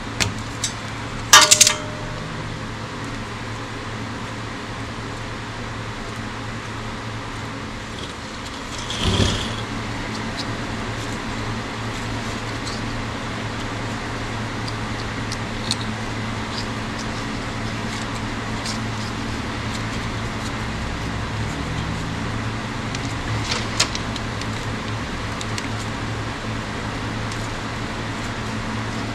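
Small metal clicks and snaps of a hand wire stripper/crimper and electrical wire being worked by hand, over a steady low hum. The loudest is one sharp snap with a short ring about a second and a half in; there is a brief rustle near nine seconds and a few light clicks later.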